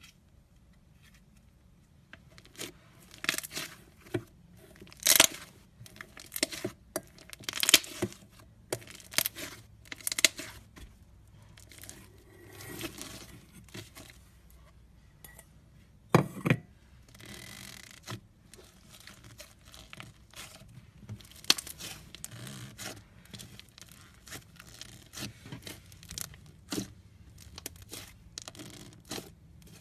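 Slime being squeezed and stretched by hand, giving irregular wet crackles and pops, with a few louder snaps.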